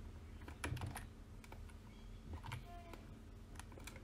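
Faint, scattered clicks from a computer keyboard and mouse, a few irregular taps over a low steady room hum.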